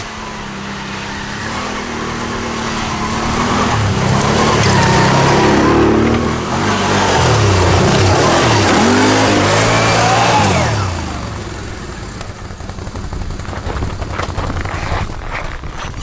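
ATV engine running as the quad drives up close and past, its pitch rising and falling with the throttle, then fading away after about eleven seconds.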